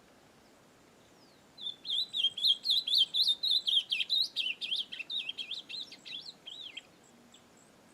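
A young ultramarine grosbeak (azulão) singing one rapid, warbling phrase of about five seconds. It begins about one and a half seconds in and fades toward the end.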